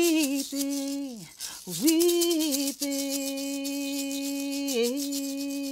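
A woman singing unaccompanied, drawing out the word "weeping" into one long, steady note, while shaking hand rattles in an even rhythm. The note wavers down briefly near the end and then holds.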